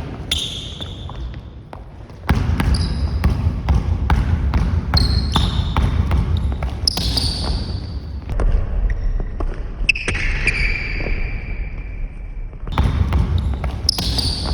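Basketball being dribbled on a gym floor, the bounces mixed with sneakers squeaking; one longer squeak comes about ten seconds in.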